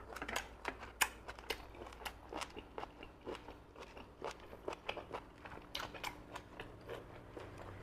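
Close-miked chewing of boiled moon snail meat: an irregular run of sharp, moist clicks and crunches.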